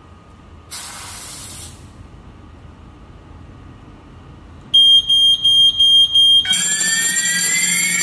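Short hiss of aerosol smoke-detector test spray about a second in, then a rapid series of high-pitched alarm beeps about five seconds in. Near the end a louder siren tone takes over, rising in pitch and repeating: the wireless fire alarm system going into alarm after the detector senses the test smoke.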